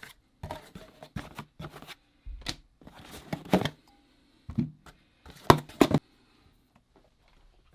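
Irregular clicks, taps and a few dull knocks, like small gear being handled, stopping about six seconds in.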